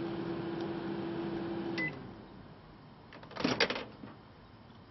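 Microwave oven running with a steady hum, then stopping about two seconds in with a short beep. About a second and a half later comes a short, loud burst of clicks and crackles.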